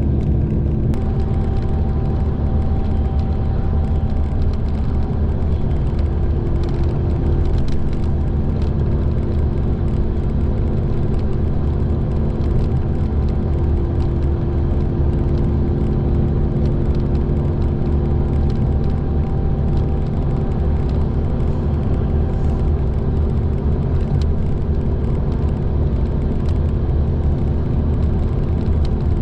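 Steady cabin drone inside a Mitsubishi Fuso Aero Ace coach cruising on an expressway: a low engine and road rumble with a few steady hums layered over it.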